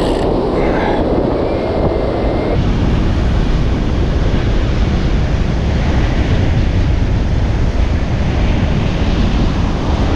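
Wind buffeting the microphone over waves breaking and washing up the beach: a loud, steady rush of noise. About two and a half seconds in, the rush turns deeper and heavier.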